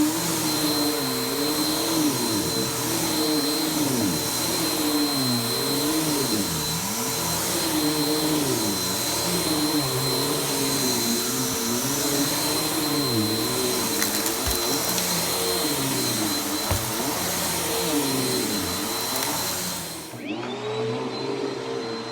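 Vacuum cleaner running on carpet: a steady motor noise with a high whine, its lower tones wavering up and down. Near the end it cuts out briefly and winds back up to speed.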